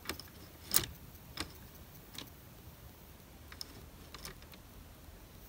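Light, irregular plastic clicks from the Lego Technic coaster train moved by hand over the chain lift, its hinged chain dogs latching onto the chain links. About six clicks, the loudest under a second in.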